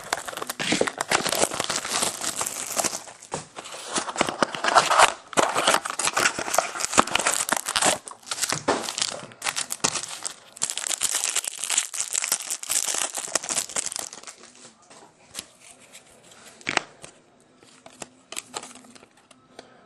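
Packaging of a trading-card mini box crinkling and tearing as it is opened, dense and crackly for most of the time, then only soft handling clicks as the chrome cards are taken out and shuffled, from about two-thirds of the way in.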